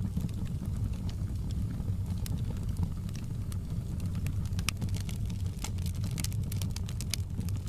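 Wood fire in a fireplace crackling: frequent sharp pops and snaps over a steady low rumble of the flames, the pops coming thicker in the second half.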